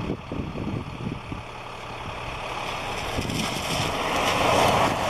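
A road vehicle's engine running and approaching, growing steadily louder over a low hum.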